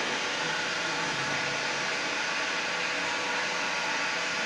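Makino EU64 wire EDM machine running, a constant hiss with a faint steady hum through it.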